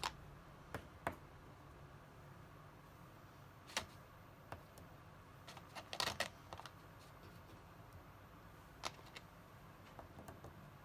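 Scattered light clicks and taps, about a dozen, with a quick cluster of several about six seconds in, over faint room hiss.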